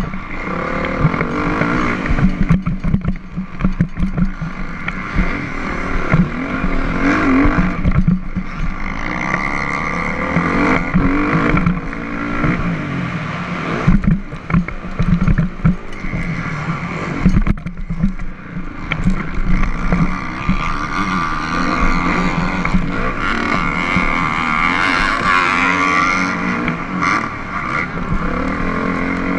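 Motocross dirt bike engine heard from on the bike, revving up and falling back again and again as it is ridden hard around a dirt track, with wind buffeting the microphone and knocks from the bumps. Near the end it winds up in one long rising rev.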